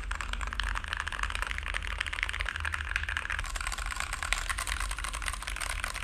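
Fast, continuous typing on a Gamakay K61 mechanical keyboard with Gateron brown tactile switches: a dense stream of keystroke clacks, with a low steady hum underneath.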